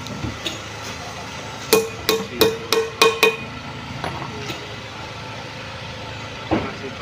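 Small hand hammer tapping parts into place on a Fuso 6D16 diesel cylinder head: a quick run of about six metal-on-metal strikes, each with a short ring, starting about two seconds in. A few faint clicks of small parts being handled follow, and a dull knock near the end.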